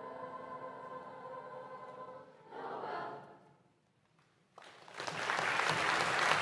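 Mixed youth choir holding a sustained chord, then singing a short final chord about two and a half seconds in that dies away into a moment of silence. Audience applause breaks out suddenly about a second later and stays loud.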